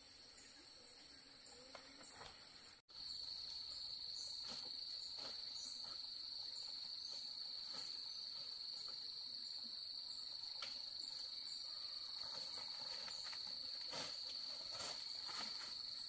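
An insect trilling in one continuous high-pitched tone, louder from about three seconds in, with scattered faint clicks and rustles.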